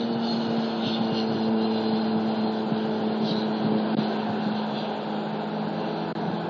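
Steady drone of a passing engine: a low hum with a couple of overtones over a noisy background, fading over the last second or two.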